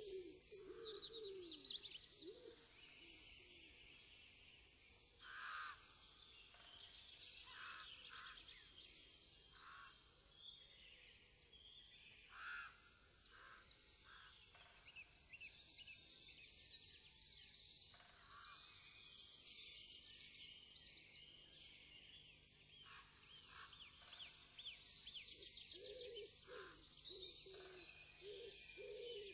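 A faint dawn-chorus-like birdsong: many small birds chirping in a dense, overlapping chorus, with a dove cooing at the start and again near the end.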